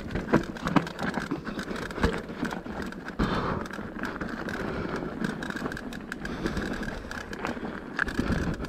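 Mountain bike descending a rough trail: tyres grinding over dirt and stones, with frequent sharp rattles and knocks from the bike as it goes over bumps.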